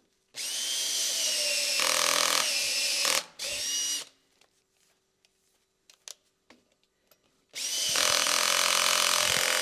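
Handheld power drill spinning a long bit down the pre-drilled holes of a clear acrylic block to smooth the hole walls, with a steady whine. There is a run of about three seconds and a short burst, then a pause of a few seconds, then another run near the end.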